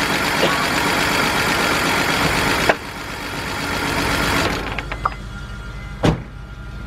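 BMW 328i engine running rough, misfiring on cylinders 3 and 4. A loud rushing noise over it cuts off suddenly about a third of the way in, builds again and fades out about two-thirds in, leaving the low engine rumble, with a sharp click near the end.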